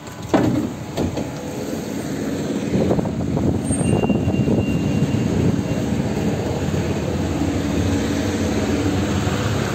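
Tram running and gathering speed: a steady rumble that grows louder, with a thin high whine briefly in the middle. Two sharp knocks come in the first second.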